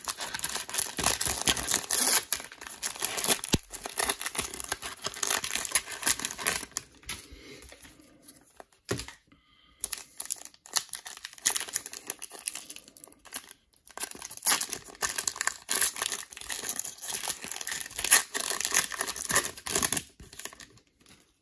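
A trading-card cello pack wrapper being torn open and crinkled in the hands: a dense, crackly rustle, quieter for a moment about nine seconds in, then crackling again until near the end.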